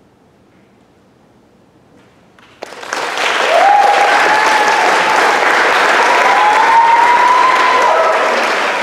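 Audience applause bursts out suddenly about two and a half seconds in, after a hushed pause at the end of the piece, and stays loud and steady, with a few voices cheering and whooping over the clapping.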